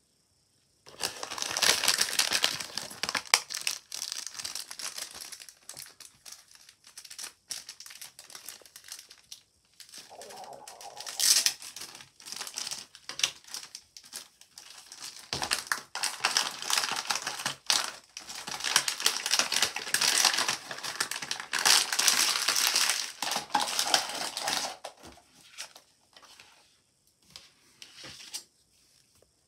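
Plastic packaging bags crinkling and rustling as they are handled and opened, in long loud bursts with a quieter patch in the middle. A few light clicks near the end.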